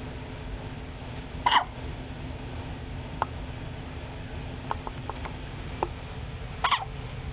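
A sleeping one-month-old baby hiccupping: two short hiccups about five seconds apart, with a few faint ticks between them.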